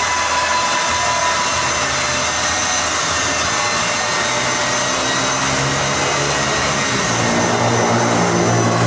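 A steady, loud machine whir with a hiss spread across the range, and a lower humming tone that comes in about seven seconds in.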